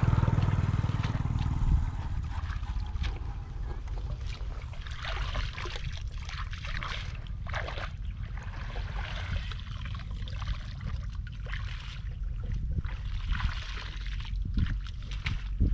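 Shallow water being scooped and bailed by hand, sloshing and trickling in irregular splashes over a steady low rumble.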